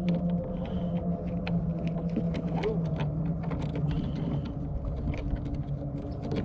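A steady low motor hum with scattered light clicks and ticks over it.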